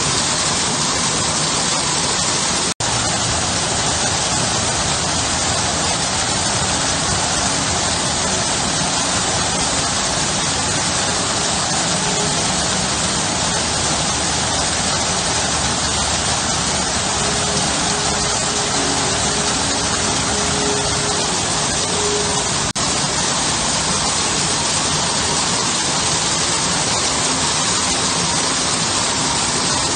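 Garden waterfall: water pouring steadily over stone into a shallow pool in an even, unbroken rush. It cuts out for an instant twice.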